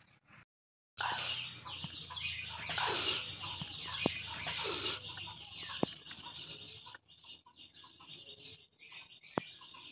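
Chickens clucking, with a few sharp clicks.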